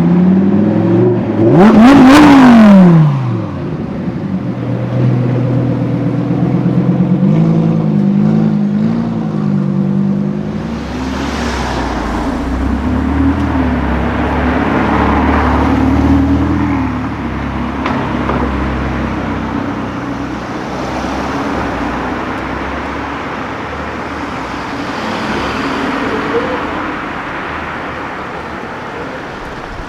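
A sports car engine revs hard about two seconds in, its pitch rising and falling back quickly; this is the loudest moment. The car then keeps running with shifting engine notes and a low rumble, which settles into the sound of street traffic.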